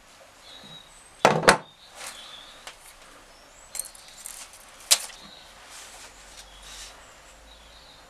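A metal multitool is set down on a wooden workbench with a sharp double clack about a second in. A few lighter clicks and knocks of handling follow.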